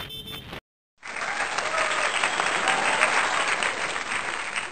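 Applause from a crowd, starting abruptly about a second in after a brief silence and cutting off abruptly near the end.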